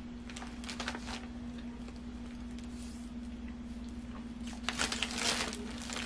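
Paper fast-food wrapper crinkling as it is handled, briefly about half a second in and louder and longer from about four and a half seconds in. A steady low hum runs underneath.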